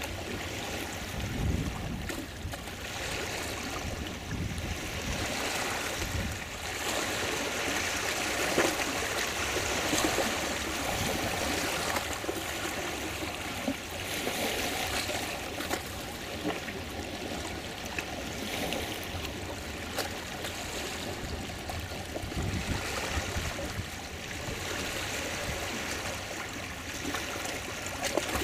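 Shallow sea water lapping and trickling around a wooden wave-energy float model rocking in the shallows, with a few brief low rumbles.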